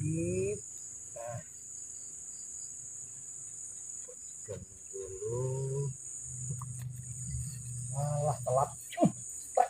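Steady high-pitched insect chorus, broken by a few short voice-like sounds near the start, midway and near the end.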